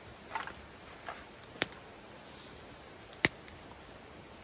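A few short, sharp clicks or snaps, two of them loud, about a second and a half apart, over a faint steady hiss.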